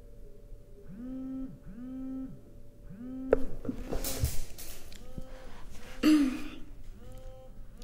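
Mobile phone vibrating on a desk: three buzzes about a second apart, each winding up in pitch as the motor spins up, then fainter buzzing continues. Partway through there is a sharp tap and a rustle of movement, and about six seconds in comes a loud breathy exhale, the loudest sound here.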